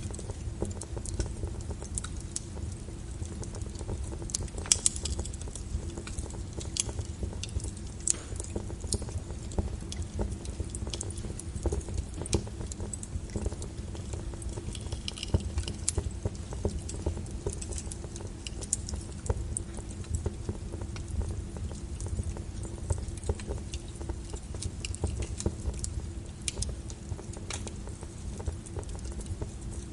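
Wood fire burning in a fireplace: a steady low rush of flame with irregular sharp crackles and pops, a few of them louder than the rest.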